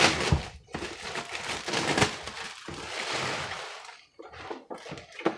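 Plastic packaging bag crinkling and rustling as it is pulled off a new coffee maker, with a few sharp clicks among the rustle.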